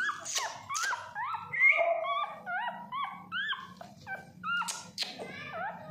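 Day-old beagle puppy, eyes not yet open, squeaking and whimpering over and over: a quick run of short cries that rise and fall in pitch, two or three a second.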